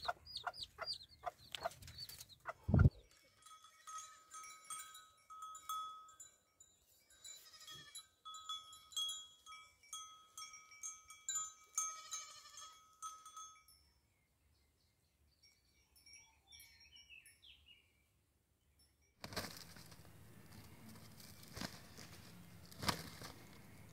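Chicks peeping in quick falling chirps, then a dull thump. Then bells worn by walking goats ring and clink for about ten seconds. Near the end there is a faint steady rushing noise.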